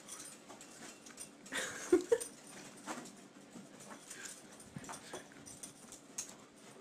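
A small dog giving a couple of brief whimpers about two seconds in as it pounces on a toy on a string, with scattered scuffs and clicks from its play on the carpet.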